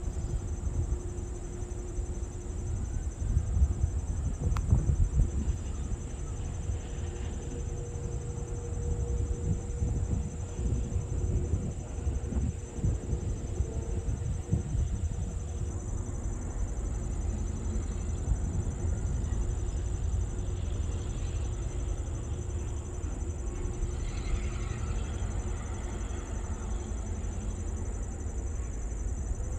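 Steady, high-pitched trilling chorus of crickets, over a low rumble from an EMD GP9R diesel locomotive creeping toward the listener at a distance.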